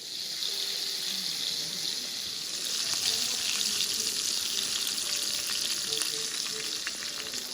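Food sizzling and crackling in a hot pan, a steady frying hiss with small pops throughout.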